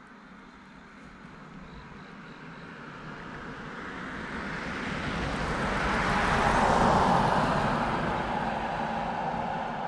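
A road vehicle passing: its engine and tyre noise rises slowly, is loudest about seven seconds in, then fades away.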